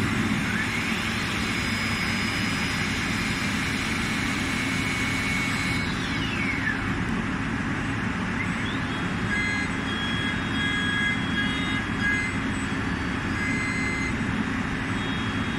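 Tornos BA 1008 milling machine running over a steady mechanical hiss, its whine rising about a second in, holding, then falling away around six to seven seconds before rising again near nine seconds.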